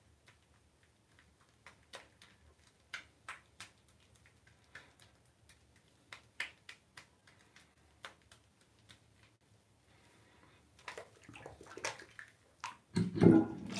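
Shaving brush working lather on a stubbled face: soft, irregular crackles and squishing clicks of bristles and foam. About a second before the end, a tap is turned on and water starts running.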